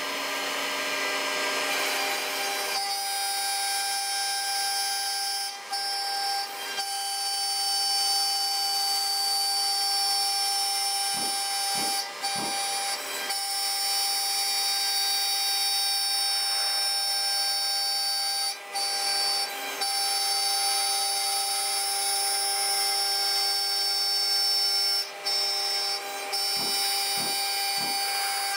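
CNC router with an 800 W spindle milling a circular groove in a wooden board: a steady high whine from the spindle over the noise of the cutter in the wood, with brief dips in level every few seconds.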